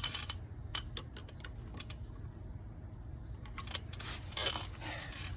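Scattered light clicks and taps of small hardware being handled: screws and a metal outdoor receptacle box and cover being fitted by hand, with a few quick clusters of clicks over a steady low rumble.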